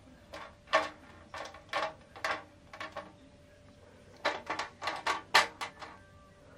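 A dozen or so short, sharp clacks in uneven clusters as a hand taps and presses the louvered shutter slats of a Panasonic FV-40AFU 16-inch exhaust fan. The loudest clacks come in a quick run about five seconds in.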